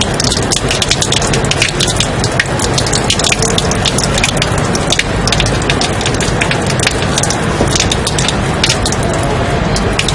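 Continuous white-noise track: an even, steady hiss with dense crackling clicks throughout, like rain or static.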